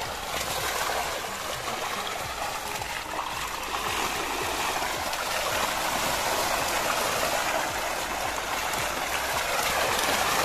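Dense, continuous splashing of water as a mass of tilapia thrash at the surface of a net cage lifted out of the water, growing a little louder toward the end.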